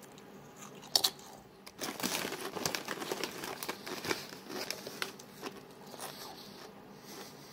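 Someone bites a crunchy tortilla chip with a sharp snap about a second in, then chews it with crackly crunching for a few seconds until it fades out.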